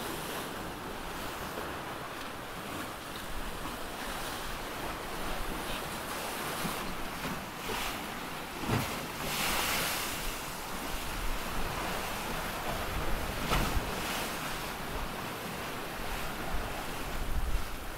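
Sea rushing and splashing past the hulls of a sailing trimaran under way, with wind buffeting the microphone. There is a louder rush about halfway through and gustier wind near the end.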